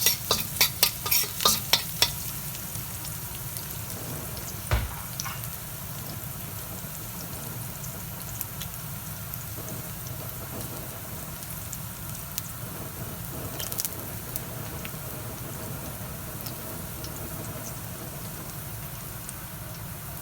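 Chopped garlic frying in hot olive oil in a wok, a steady sizzle as the garlic browns. For the first couple of seconds a utensil is stirred against the wok in quick clicking strokes, and there is a single knock about five seconds in.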